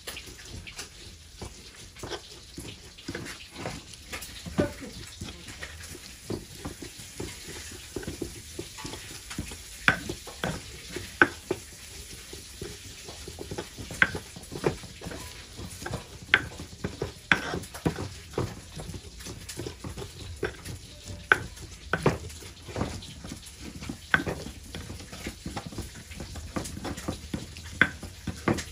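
A stone pestle (ulekan) grinds and mashes a wet chilli and tomato spice paste in a stone mortar (cobek). There is continuous scraping and squelching crushing, broken by frequent, irregular sharp knocks of stone on stone.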